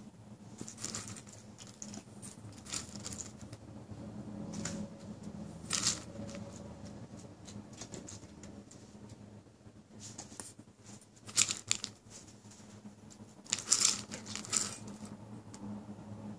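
Scattered short rustling and crinkling noises as a German shepherd mouths and noses a fabric stuffed toy, with a few sharper, louder ones about two-thirds of the way in and near the end.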